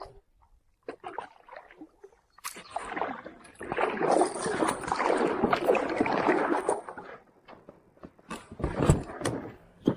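Small rowboat moving through the water: oars dipping and water sloshing for a few seconds past the middle, then a few sharp knocks near the end.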